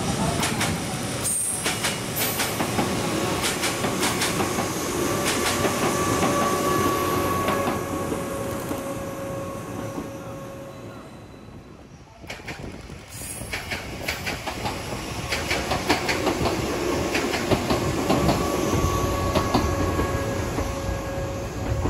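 Three coupled KuMoYa 145 series electric service cars running past on the rails, with wheels clicking over the rail joints; the sound fades away as the train recedes. A second pass follows, building up again with rhythmic clickety-clack as the cars run close by.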